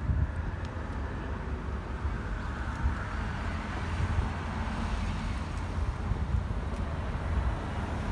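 Street traffic noise with low wind rumble on the microphone, a passing vehicle swelling and fading in the middle.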